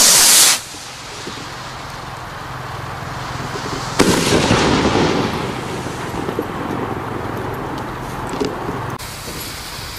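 A VSR2 Pro 40 g shell-effect firework rocket launching with a brief loud whoosh, then about four seconds later its shell bursting with one sharp bang that rumbles and echoes away over a couple of seconds. A few faint pops follow near the end.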